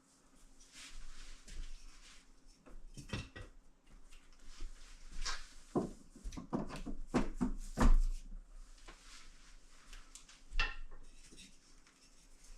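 Irregular knocks, taps and scraping from handling a new door frame as it is fitted, with the loudest knock about eight seconds in.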